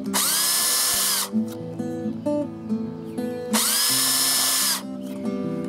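Cordless drill with a small bit boring stitching holes through the edge of a leather holster, run in two bursts of about a second each; each spins up with a rising whine and then holds steady. Guitar music plays underneath.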